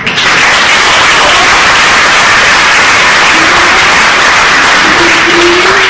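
Theatre audience applauding, loud and even, starting abruptly.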